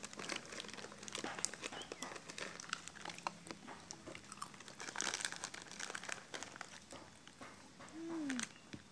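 Plastic snack wrappers crinkling and crackling as they are handled, with many irregular sharp crackles. A short falling low tone sounds near the end.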